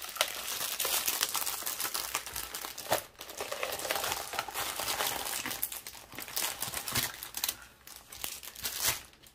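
Plastic film and paper crinkling and rustling as a diamond-painting canvas and its paper sheets are handled and folded to go back into their original packaging. It quietens near the end.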